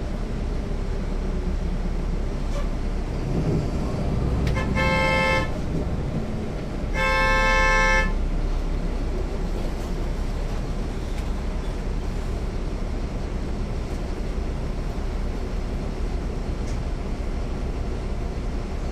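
Inside a 2009 NABI 40-SFW transit bus, heard from the rear seats: its Caterpillar C13 diesel and road noise run steadily. A vehicle horn sounds twice: a short honk about five seconds in and a longer one, about a second, near seven seconds.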